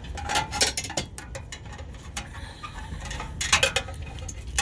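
Bent wire coat hanger tapping and scraping against metal as it is worked up to hook a truck's hood latch. It makes a scatter of irregular clicks and rattles, thickest about half a second in and again around three and a half seconds.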